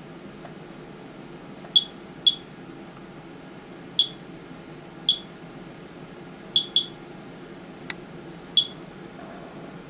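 Monitor 4 Geiger counter chirping once for each detected count: seven short, high beeps at irregular, random intervals, a rate of about 40 counts a minute from a radioactive rain sample, a little over twice background.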